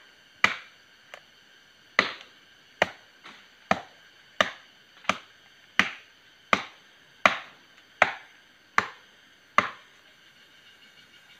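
A parang (machete) chopping into a tree trunk: about a dozen sharp blows, roughly one every three-quarters of a second, each with a brief ringing tail. The chopping stops near the end.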